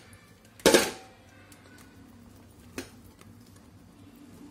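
Cooked biryani being tipped out of a steel pressure cooker into a wide metal pan: a short rustling scrape of metal on metal about a second in, then one sharp clink near the three-second mark.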